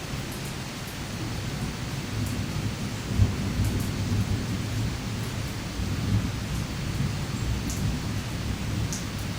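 Steady rain with scattered drips, and a low rolling rumble of thunder that swells from about two seconds in. There is one brief sharp knock about three seconds in.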